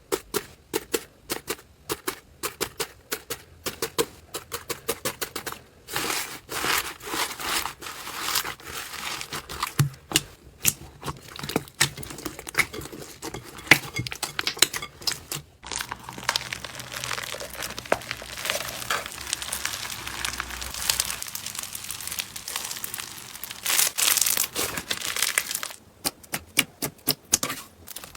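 Slime being squeezed and poked by hand, making a run of sharp sticky clicks and pops. After a brief break about halfway through, it turns into a denser, more continuous crackle.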